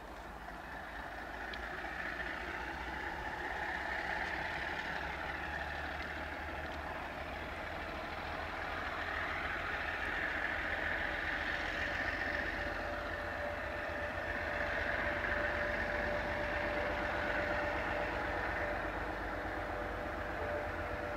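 Diesel locomotive engine running at low power as it slowly approaches hauling a train of tank wagons, growing gradually louder. A thin steady whine joins in about halfway.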